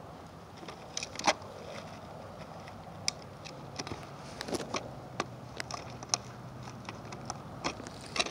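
Small hard plastic clicks and snaps as the parts of a Victory Valkyrie Beyblade Burst top are fitted together by hand, irregular, the loudest a little after a second in. A faint low steady hum runs underneath.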